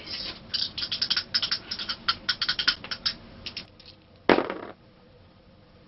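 A pair of Monopoly dice rattling quickly in a shaking hand for about three and a half seconds, then thrown onto the game board with one louder clatter a little over four seconds in.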